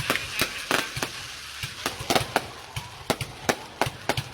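Fireworks going off in a rapid, irregular string of sharp bangs and pops, about three a second.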